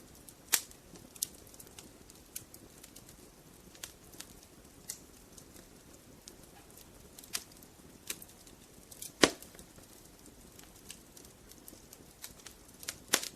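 Wood fire crackling: irregular sharp pops and snaps from burning logs over a faint low hiss, with a loud pop about nine seconds in.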